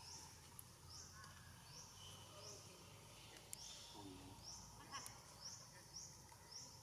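Faint outdoor ambience with a high-pitched chirp repeating about every three-quarters of a second.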